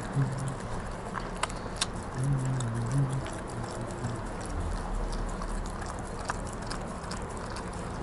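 A dog eating fried duck egg from a small glass bowl: wet chewing and licking with scattered sharp clicks of teeth and tongue against the glass. Low background music notes play underneath.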